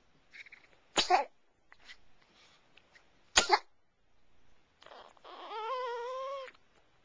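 Two sharp hiccups about two and a half seconds apart, then a short whine with a wavering pitch lasting about a second.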